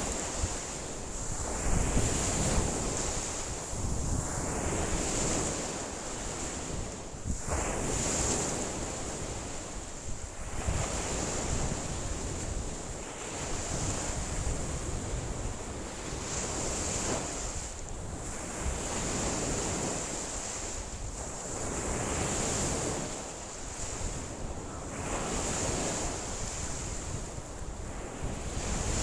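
Wind-driven lake waves washing in against the shore, one surge every two to three seconds, with strong wind gusting and buffeting the microphone.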